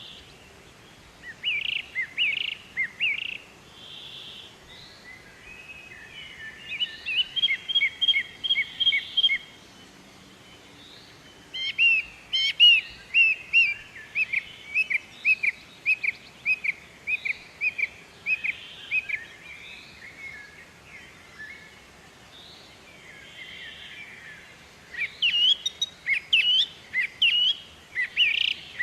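A bird called kincrong in Indonesian, singing in phrases of quick, repeated high chirps with short pauses between them. The longest run comes about twelve seconds in and lasts several seconds, and another lively burst comes near the end.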